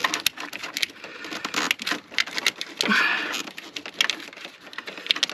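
Irregular clicks, taps and rustling of hands working plastic washer hose and trim parts, with a short breath or grunt about three seconds in.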